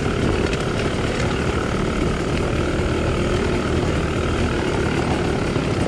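2018 GasGas 250XC dirt bike's 250 cc two-stroke engine running at a steady, nearly unchanging pitch.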